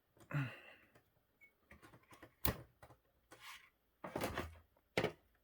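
A few sharp clicks and short knocks from the parts of a monitor stand being handled and fitted together. The loudest click comes about two and a half seconds in.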